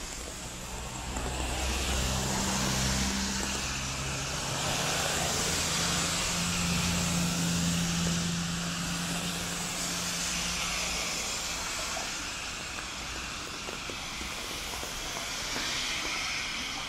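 Road traffic on wet asphalt: a steady hiss of tyres on the wet road, with a low engine hum from a passing vehicle that swells about a second in and fades away about two-thirds of the way through.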